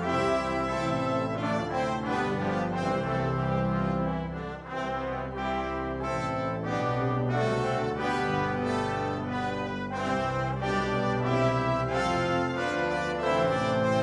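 Brass ensemble of trumpets, trombones and tuba playing sustained chords, with a short dip in loudness about four and a half seconds in.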